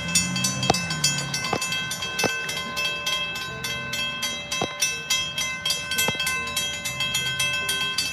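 Railroad crossing warning bell ringing fast and steadily while the gates are down, with a few sharper knocks over it.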